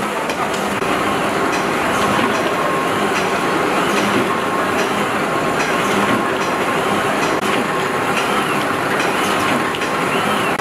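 8-blade paper straw rolling machine running at speed: a steady, dense mechanical clatter with a faint whine and light ticks repeating about once a second.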